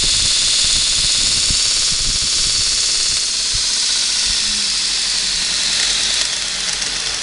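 Bench grinder with a Multitool belt-sander attachment running, its abrasive belt travelling over the platen: a steady loud hiss over a low motor rumble. The sound eases a little about six seconds in.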